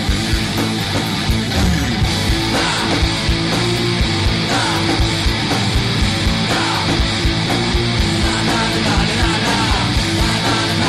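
Guitar-driven rock song playing, with electric guitar over a steady drum beat.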